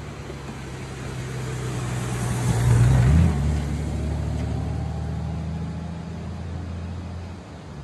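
Large touring motorcycle approaching and passing close by. Its engine swells to a peak about three seconds in, drops in pitch as it goes past, then fades as it rides away.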